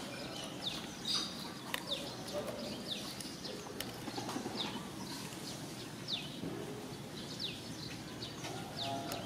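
A bird calling over and over with short, high, falling chirps, about one a second, over steady outdoor background noise.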